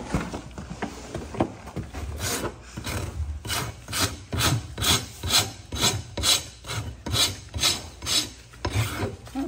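Farrier's hand rasp filing a horse's hoof in even back-and-forth strokes, about two a second, after a few knocks as the hoof is set on the stand.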